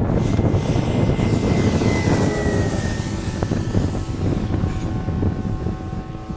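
Radio-controlled scale Fw 190 model's engine and propeller passing overhead, the pitch dropping slightly as it goes by about two to three seconds in, then slowly fading. Wind rumbles on the microphone.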